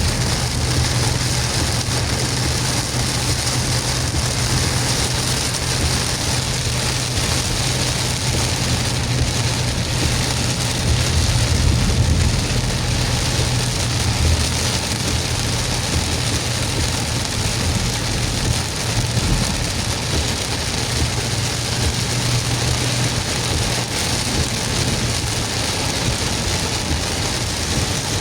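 A car driving through heavy rain: a steady low engine and road hum under the hiss of rain.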